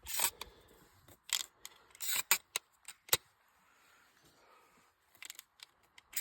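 Handling noise: a scattered string of small clicks, rattles and rustles, with quiet gaps between them.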